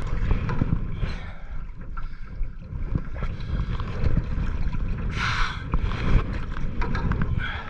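Wind buffeting the microphone while a canoe is paddled, with paddle splashes and knocks over the rumble and a short burst of splashing about five seconds in.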